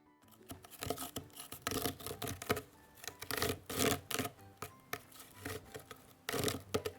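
Cat scratching with its claws: a run of irregular rasping strokes, loudest around the middle and again near the end.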